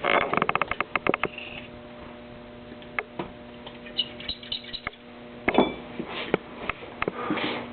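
A quick run of light clicks and taps from tools and small parts being handled, then a steady electrical hum with a few single clicks near the end.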